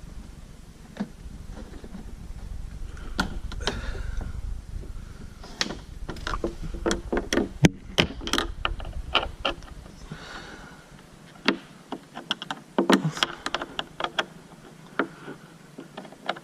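Hands working on car parts: an irregular series of clicks and knocks, with a low steady rumble underneath that stops about ten seconds in.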